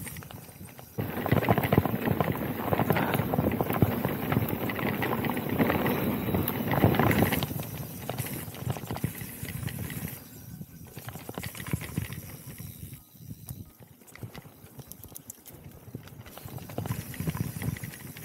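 Electric mountain bike rolling down a dirt singletrack: the knobby tyres crunch and the bike clatters over roots and rocks, louder for the first several seconds, then easing off.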